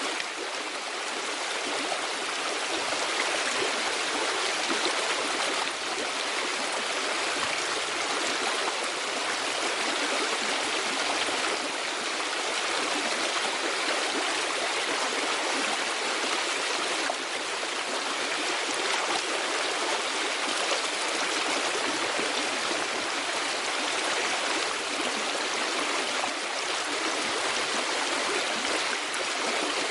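Steady rushing of flowing stream water: an even, unbroken wash of sound that holds the same level throughout.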